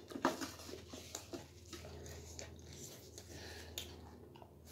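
Close-up chewing of crunchy snack food: irregular crunches and wet mouth clicks.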